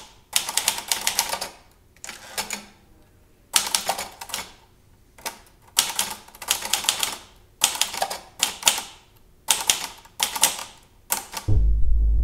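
Red portable typewriter being typed on in bursts of quick key strikes, with pauses of about a second between bursts. Near the end a loud, deep, steady low rumble comes in for about a second and a half.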